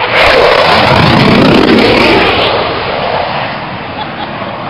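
A-10 Thunderbolt II jet making a low pass overhead, its twin turbofan engines a loud rushing roar. The roar comes up sharply just after the start, holds for about two seconds, then fades away.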